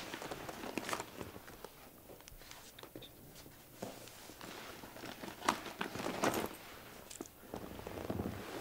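Rustling and light clicks of a handbag being rummaged through, with people shifting on a leather sofa. The movement sound rises near the end.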